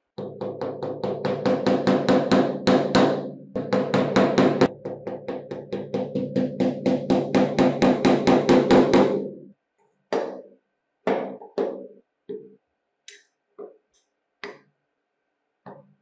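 Hammer tapping small nails through plastic cable clips into a wooden board. A fast, even run of taps with a ringing note lasts about nine seconds, then about eight single taps come at spaced intervals.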